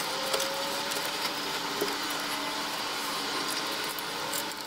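A steady machine-like whir with faint, slowly rising tones and a few light clicks.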